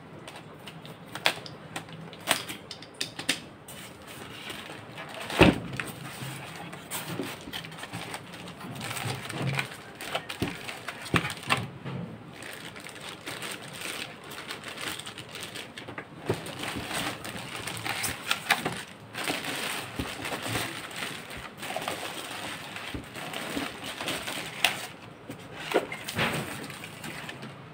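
Packaging being handled: polystyrene foam packing pieces rubbing and knocking and plastic wrap crinkling as a boxed car armrest is unpacked, with many small clicks and one sharp knock about five seconds in.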